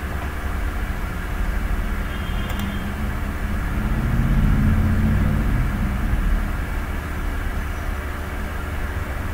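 Steady low mechanical hum and drone with several constant tones, swelling louder for a couple of seconds in the middle. A short faint click comes about two and a half seconds in.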